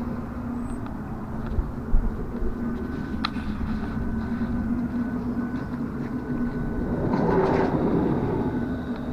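Diesel parking heater running with a steady hum from its fan and burner. There is one sharp click about three seconds in and a swell of wider noise near the end.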